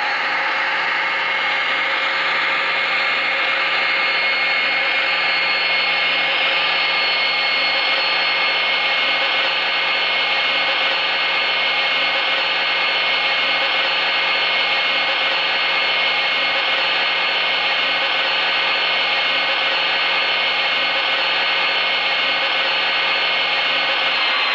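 O scale model diesel locomotive's sound system playing a steady diesel engine running sound, an even drone with a few constant whining tones on top.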